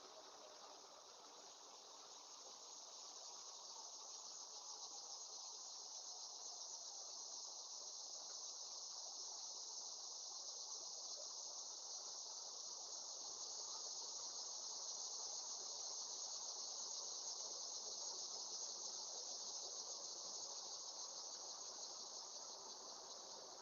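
Steady chorus of insects, a continuous high-pitched trill that swells slightly toward the middle.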